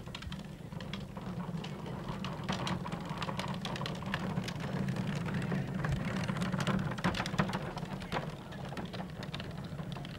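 A wooden wheelbarrow loaded with wooden crates rattling and clicking irregularly as it is pushed over asphalt. The rattle builds up after a second or so and fades near the end, over a steady low hum.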